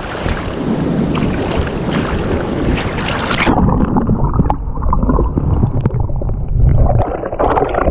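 Seawater sloshing and wind on the microphone at the surface of a foamy, rocky tide pool. About three and a half seconds in the microphone goes under water: the high end cuts off suddenly and the sound turns muffled, with dull knocks and bubbling.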